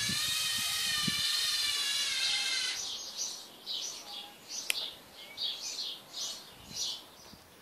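Lego Mindstorms NXT servo motors whining as they drive a Lego Technic truck along, stopping a little under three seconds in. After that, birds chirp in short calls, with one sharp click near the middle.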